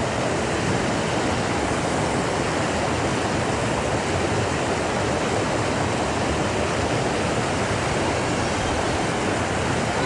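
Stream water rushing over rocks in a small cascade close by: a steady rush of white water.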